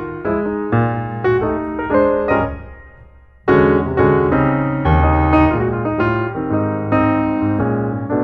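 Background piano music: a running melody of struck notes over bass notes. It dies away just before three seconds in and comes back in full about half a second later.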